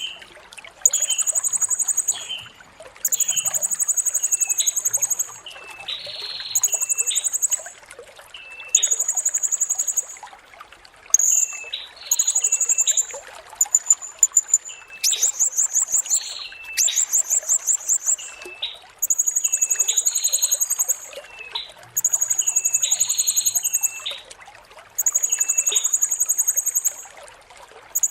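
Blue-crowned hanging parrot (serindit) repeating very high, shrill trilled phrases of a second or two each with short gaps between, over a steady trickle of running water. Shorter, lower chirps fall between the phrases, and around the middle comes a run of faster, clipped pulsed notes.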